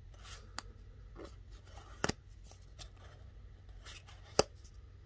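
Cardboard game cards being handled and flipped through: soft sliding of card against card with three sharp flicks, the loudest about four and a half seconds in.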